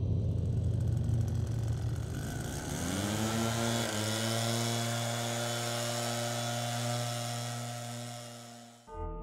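A low droning hum with a hiss above it. About three seconds in it rises in pitch and settles into a steady hum, then fades and cuts off sharply near the end.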